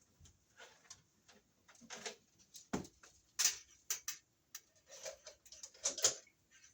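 Electrical wires being pushed down into a wiremold raceway by hand: irregular clicks, taps and short scrapes of the wire and the fingers against the raceway.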